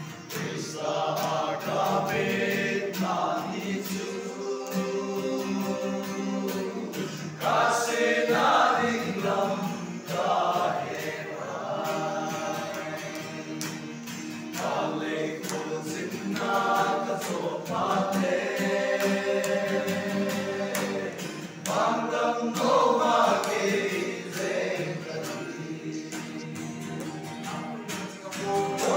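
A group of young men singing a Christian hymn together, in phrases of held notes with short breaks between them.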